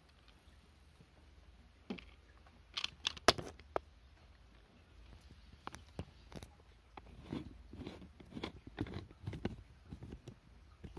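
Close, crinkly rustling with a few sharp clicks, the loudest a little after the start, then a run of soft thuds and rustles through the second half.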